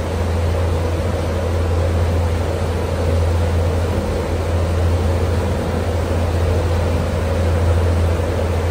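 A boat's engine running with a steady low hum under the rushing of the propeller wake churning at the stern.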